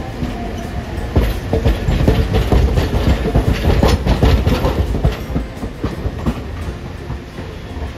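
Hiroden streetcar car 812, a single-car tram, passing close by and pulling away, its steel wheels clattering on the rails over a low running rumble. The clatter is loudest about one to five seconds in, then eases as the tram moves off.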